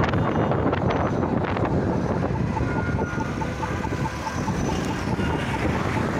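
Road traffic moving through a city intersection, with wind buffeting the microphone. From about two seconds in, a pedestrian crossing signal beeps quickly and evenly, about four beeps a second, the sign that the crossing is open to walkers.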